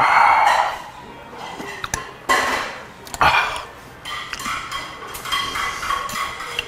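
Metal spoon clinking and scraping against a bowl of sundae gukbap while stirring and scooping the soup, with a few short clatters and small ringing clinks.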